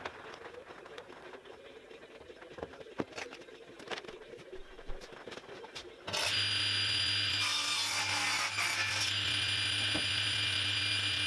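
A few light knocks as a plywood sheet is handled on a table saw. About six seconds in, the saw starts suddenly with a steady hum and high whine, and then cuts through 3/4-inch plywood.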